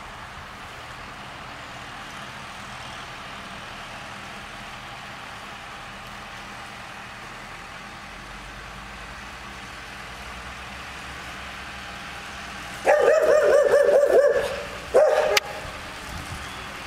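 New Holland T4 tractor engine running steadily as the tractor drives across the field, growing a little louder as it nears. About two-thirds of the way in, a dog barks loudly close by, in a run of about a second and a half and then once more briefly.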